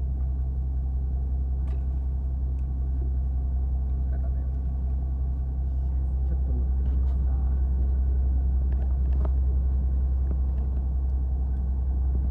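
Fishing boat's engine running steadily, a low rumble that grows slightly louder about halfway through, with a few faint light knocks over it.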